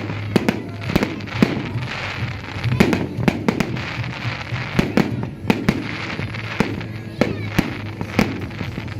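Fireworks going off: many sharp bangs at irregular intervals, several a second, over continuous background noise.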